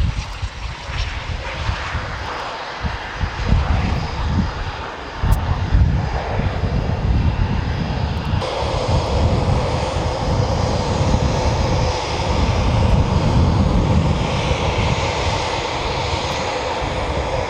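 Eurofighter Typhoon twin jet engines: a loud, rumbling takeoff run, then, after a sudden cut about eight seconds in, the steady whine of Typhoon engines running on the ground.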